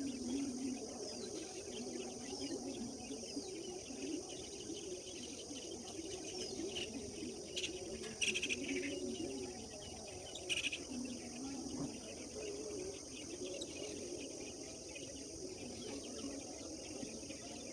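Rural dawn chorus: birds chirping, with short falling chirps about once a second and a few louder calls midway, over a steady high-pitched drone of crickets. A low murmur runs underneath.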